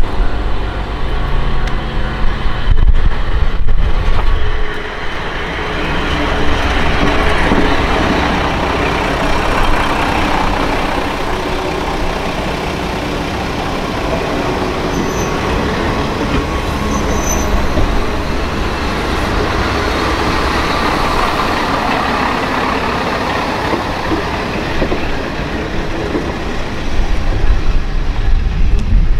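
Kanto Railway diesel railcar moving slowly past at close range and on along the track: its diesel engine running and its wheels rolling over the rails. Two brief high squeals come about halfway through.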